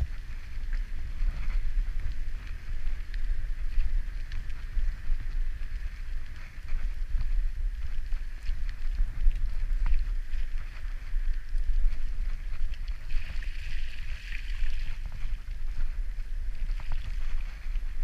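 Wind buffeting the microphone of a body-mounted action camera on a moving bicycle, a gusty low rumble, over the hiss of bicycle tyres on wet pavement with small rattles and clicks from the bike.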